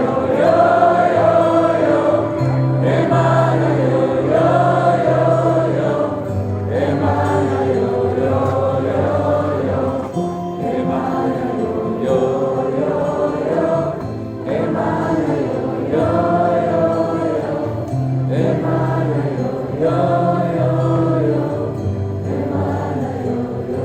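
Live band music with wordless group singing over a held, slowly changing bass line.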